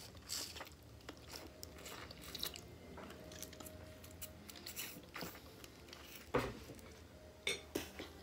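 A person eating macaroni and sausage with the fingers, close to the microphone: quiet chewing and wet mouth smacks, with fingers sucked clean at the start and a few sharper smacks in the second half.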